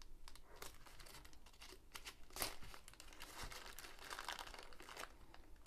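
Blunt scissors cutting through a thin black plastic mailer bag, the plastic crinkling and tearing in short irregular snips, the loudest about two and a half seconds in.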